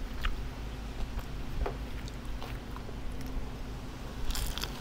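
A person chewing and eating close to the microphone, with scattered soft mouth and utensil clicks and a quick cluster of sharper clicks near the end, over a steady low hum.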